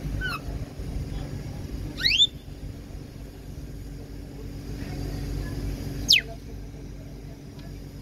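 African grey parrot whistling: a short falling whistle at the start, a quick rising two-part whistle about two seconds in, and a loud falling whistle about six seconds in. A steady low rumble runs underneath.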